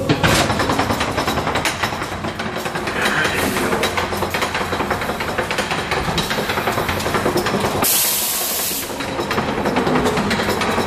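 Ghost train ride car rattling and clattering along its track through the dark ride, with a hiss lasting about a second near the end.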